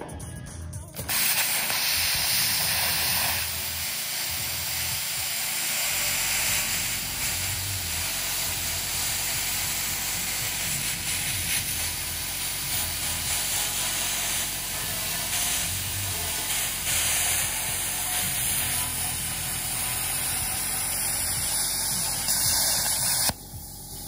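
Cigweld CutSkill 35 plasma cutter cutting through a metal drum: a loud, steady hiss of the air-plasma arc that starts about a second in and cuts off suddenly near the end.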